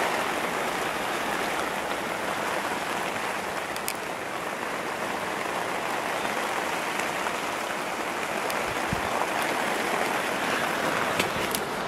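Steady rain pattering on a tent, heard from inside it, with a few sharper drop ticks now and then.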